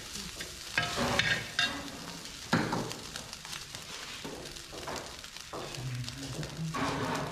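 Perforated steel ladle stirring and scraping rice and peas around a large steel pan on the stove, with several scrapes in the first three seconds, then softer.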